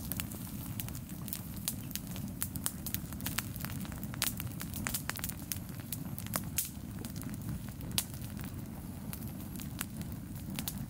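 Campfire crackling, with irregular sharp pops over a steady low rush of flame.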